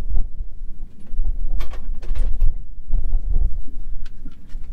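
Wind buffeting the microphone, an uneven low rumble, with a few light clicks and scrapes of hand tools on metal about one and a half to two and a half seconds in.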